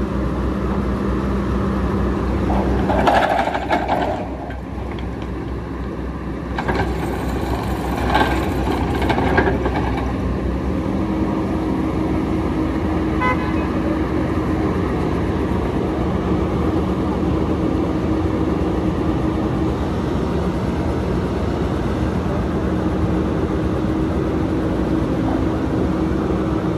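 Hydraulic excavator's diesel engine running steadily as it lowers a steel sheet into the water, with bursts of clatter between about three and ten seconds in.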